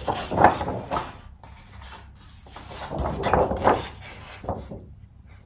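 Large sheets of drawing paper rustling and flapping as they are shuffled and held up one after another, in two bursts about three seconds apart.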